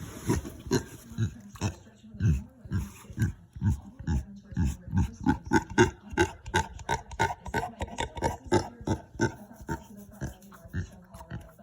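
Pet pig grunting in a steady run of short, low grunts, about three a second.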